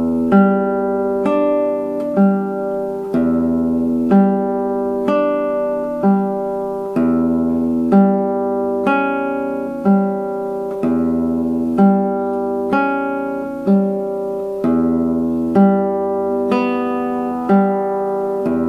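Nylon-string classical guitar fingerpicking a slow arpeggio study, about one note a second, each note left ringing into the next.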